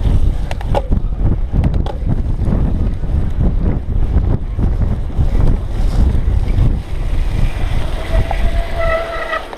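Wind buffeting an action camera's microphone as a cyclocross bike is ridden fast over rough dirt, with the bike rattling and clicking over the bumps. Near the end a steady high tone sounds for about a second and a half.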